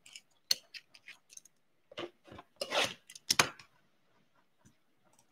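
Crinkling and crackling of plastic shrink wrap on a cardboard hockey-card blaster box as it is handled and opened, in a few short bursts with light clicks over the first three and a half seconds.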